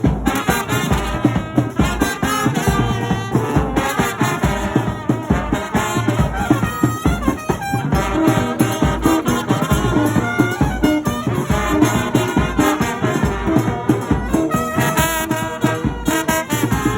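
A brass band playing dance music: trumpets and trombones carry the melody over a steady driving beat.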